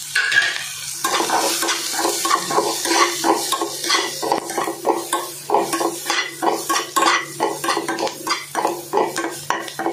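Flat metal spatula scraping and stirring onion, capsicum and spice powders around an oiled kadai, in repeated strokes about two a second, with the vegetables sizzling as they fry.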